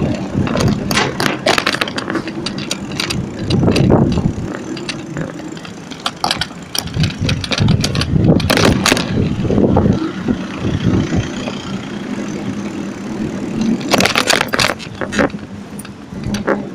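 Bicycle rolling over tiled pavement and asphalt, rattling and clattering over the bumps on a steady low rumble, with bursts of sharp clatter near the start, in the middle and near the end.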